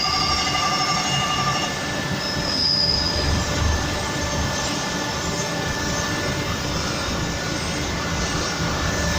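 Crankshaft grinding machine running, its abrasive wheel grinding a six-cylinder engine's crankshaft journal: a steady mechanical rumble with a high-pitched squeal that fades about two seconds in, and a short squeal again about a second later.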